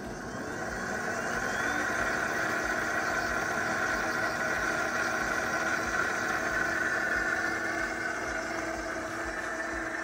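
ChefWave Milkmade nut milk maker's motor blades running, grinding sunflower seeds and water into milk, a steady whir that builds over the first two seconds and then holds.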